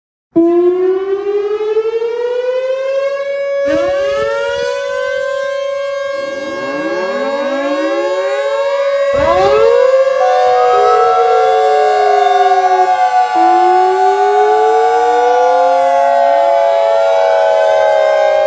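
Several outdoor warning sirens start one after another and layer together. The first winds up over about three seconds to a steady tone, others join with rising wind-ups about four, six and nine seconds in, and from about eleven seconds one wails down and up repeatedly beneath the steady tones.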